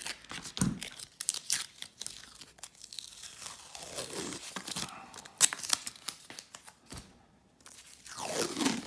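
3M painter's tape being pulled off its roll and torn, crackling and ripping in spurts, with a short pause about seven seconds in.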